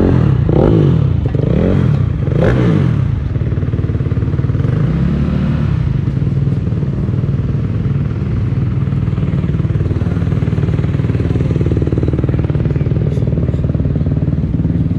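Dirt bike engines running, revving up and down several times in the first few seconds, then a steady drone.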